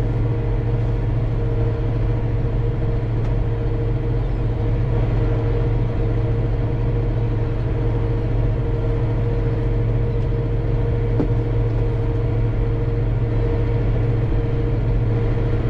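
Tractor engine running steadily under load while pulling a plough, heard from inside the cab, with a deep drone and a steady higher whine over it.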